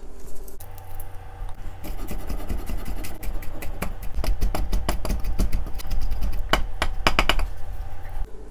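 Cleaver chopping garlic cloves on a wooden cutting board: a quick run of knocks of the blade against the board, several a second, then the blade scraping the minced garlic together near the end.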